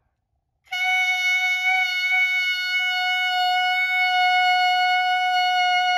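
Clarinet barrel and mouthpiece played together as one long steady tone at a single pitch, starting just under a second in.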